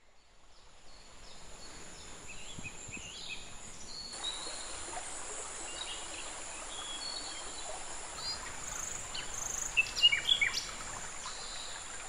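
Forest ambience fading in: a steady high insect drone, louder from about four seconds in, with scattered bird chirps and calls and a quick run of louder chirps near ten seconds in.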